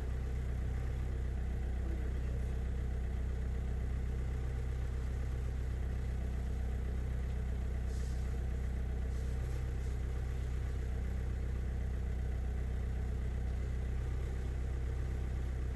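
Heavy diesel engine idling steadily, with a faint click about eight seconds in.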